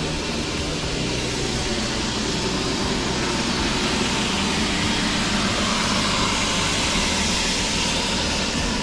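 Steady, even roar of background noise in a large railway station hall, with no distinct events.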